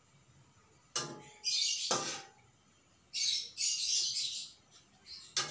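Metal spatula scraping and knocking against a wok during stirring: three sharp knocks, about a second in, about two seconds in and near the end, with longer scraping strokes between them.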